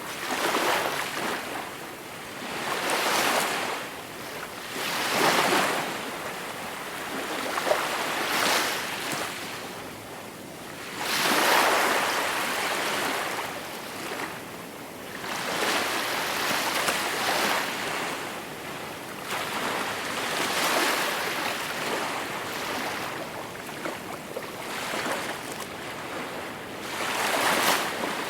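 Gentle sea waves break and wash ashore one after another, a swell of surf hiss every few seconds that rises and falls away.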